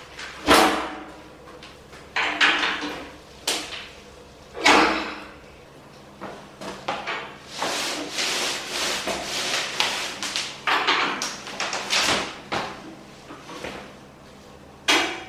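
Heavy steel Strong Hand Tools Rhino welding cart being shifted on its wooden shipping pallet: a few sharp metal clunks and knocks, then several seconds of continuous scraping and rattling, and another clunk near the end.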